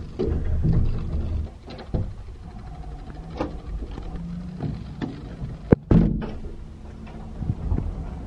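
Round metal door knobs being turned and doors opened: several sharp latch clicks and knocks, the sharpest a little before six seconds in, over a low rumble of handling noise.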